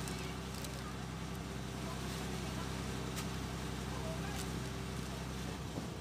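Steady low drone of a boat's engine, heard from on board.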